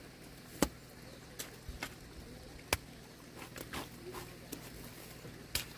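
A few irregular, sharp clicks and knocks against a faint outdoor background. The loudest come about half a second in, near the three-second mark and near the end.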